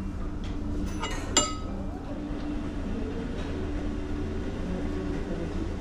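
Steady low rumble of a moving vehicle, with one sharp metallic clink about a second and a half in.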